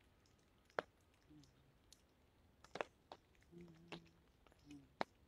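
Near silence broken by about five scattered, sharp clicks and a couple of faint, brief low hums.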